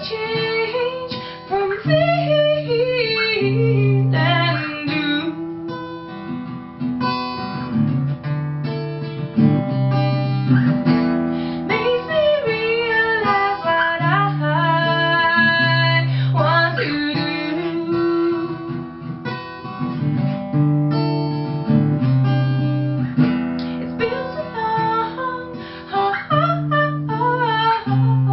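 A woman singing a melody to her own acoustic guitar accompaniment: strummed and plucked chords with a repeating low bass note under the voice.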